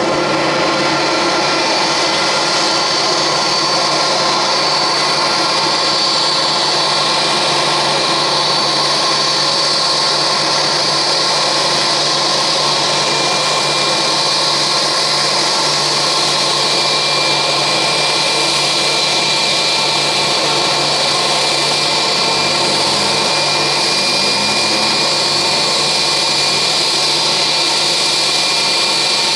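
Airbus A320's IAE V2500 turbofan engines at idle as the aircraft taxis in to the gate: a loud, steady whine with a high-pitched tone over a rushing hum.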